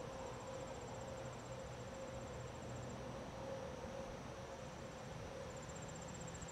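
Crickets trilling faintly, high-pitched and fast-pulsed, in runs that break off about three seconds in and start again about five seconds in, over a steady low hiss. No thunder.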